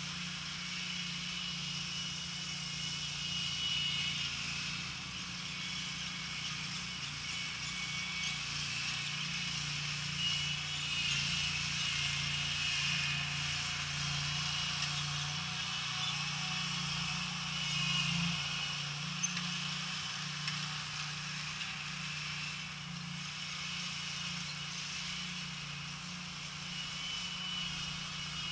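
Small engine of a distant Z-Spray stand-on lawn fertilizer spreader-sprayer running steadily as it crosses the lawn: a constant low hum with a higher buzz over it that swells and fades a little.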